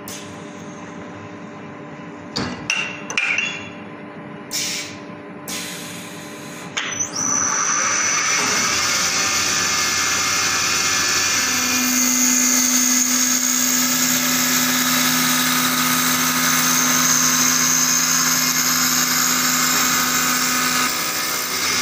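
Automatic wood copy lathe turning a wooden blank. It starts quieter with a few short knocks. About seven seconds in, the cutters engage and the cutting becomes a loud, steady, high-pitched whine.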